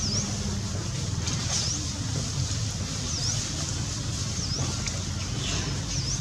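Outdoor background of a steady low engine rumble, with a short, high chirp that dips and rises again repeating about every one and a half seconds.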